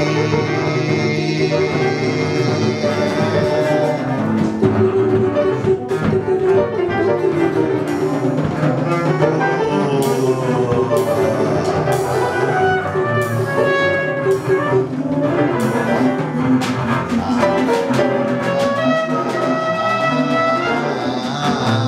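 Free-improvised jazz: voices, trumpet, piano and drums playing together, with a dense weave of shifting pitches and scattered drum and cymbal hits.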